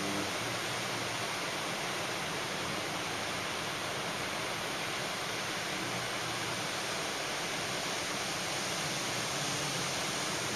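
Ocean surf breaking and washing up the beach, a steady, even hiss of noise with no single wave standing out.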